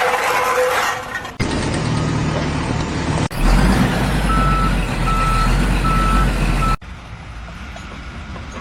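Heavy vehicle's engine running with a low rumble while its reversing alarm beeps four times, evenly spaced. Before and after it come other brief bursts of machine noise, each cut off suddenly.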